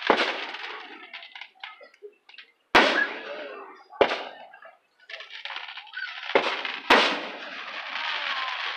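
Aerial firework shells bursting overhead: five sharp booms at uneven intervals, each trailing off. Fainter crackling follows the first one.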